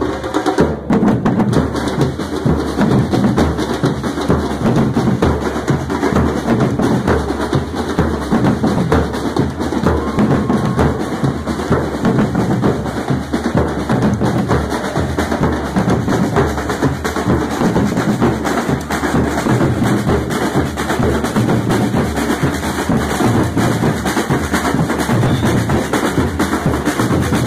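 A street drum corps playing together: many large surdo-style bass drums beaten with mallets, along with smaller drums, in a loud, steady, driving rhythm.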